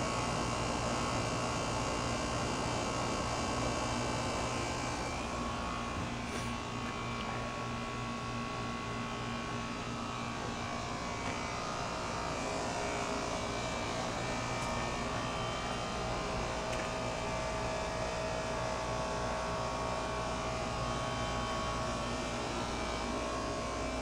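R-22 heat pump outdoor unit running steadily in heat mode, its compressor humming with the outdoor fan motor stopped by a mild weather switch. The fan is cycled off to lower the high head pressure caused by a mismatched coil.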